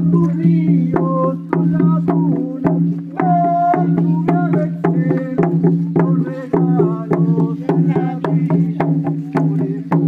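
Ceremonial music with a steady low drone on one pitch, sharp wooden clicks beating about three times a second, and a wavering melody above.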